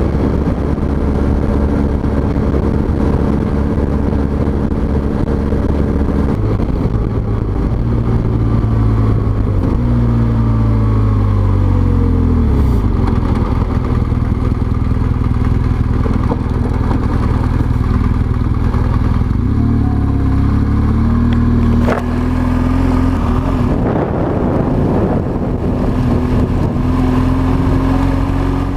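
Motorcycle engine running under way. Its note falls as the bike slows, then climbs gradually again in the last several seconds.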